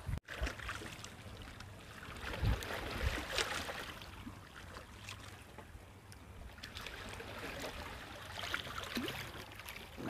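Choppy, muddy seawater lapping and washing against shoreline rocks, a soft steady splashing. Two dull low thumps come about two and a half and three seconds in.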